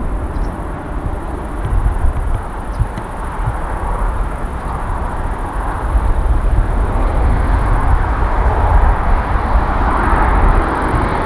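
Boeing 787-9 jet engines heard as a steady, broad roar with a deep rumble, swelling a little toward the end.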